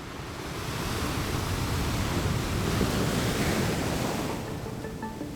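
Sea surf: a steady rushing wash of waves that fades in and swells, then eases as music begins near the end.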